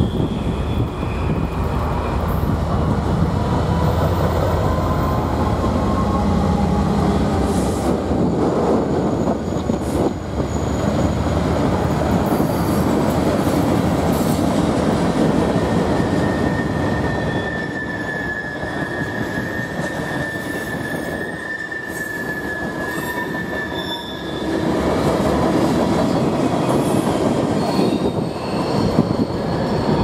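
Norfolk Southern diesel freight train passing close by, the locomotives' rumble followed by freight cars rolling over the rails. Wheel flanges squeal on the curve, a high steady squeal from about halfway through that fades out about a quarter of the way before the end.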